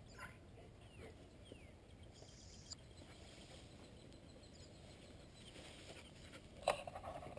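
Quiet outdoor ambience with a few faint bird chirps and a brief high insect buzz, and one sharp click near the end.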